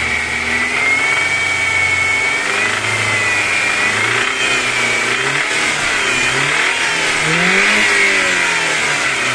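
BMW M43TU four-cylinder petrol engine running and being revved, its pitch rising and falling with the throttle. It runs softer with new rockers and hydraulic lifters, but a knock remains that the owner puts down to worn connecting-rod bearings on the second cylinder.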